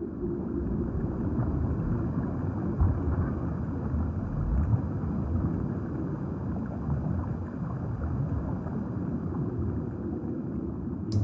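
Steady, muffled underwater ambience: a low rushing water rumble with no distinct events.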